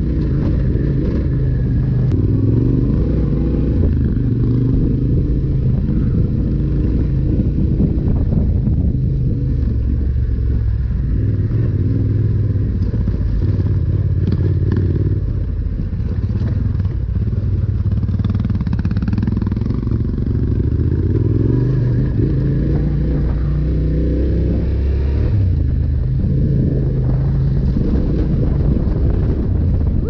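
Yamaha Ténéré 700's 689 cc parallel-twin engine, fitted with a Yoshimura RS-12 slip-on exhaust, running under way as the bike is ridden over a loose rocky trail, its engine note rising and falling with the throttle.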